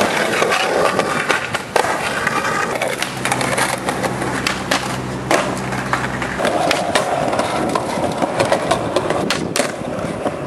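Skateboard wheels rolling over concrete and brick pavers, broken by repeated sharp clacks of the board popping and landing.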